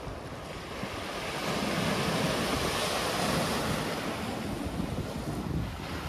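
Big sea waves breaking on the shore, the surf swelling to a peak a couple of seconds in and then easing off, with wind buffeting the microphone.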